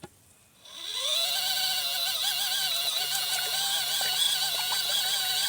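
Small electric motor of a 12 V portable washing machine starting up after a brief pause, its whine rising for a moment and then running steadily as the tub agitates the wash. The machine stops and restarts like this each time it reverses direction.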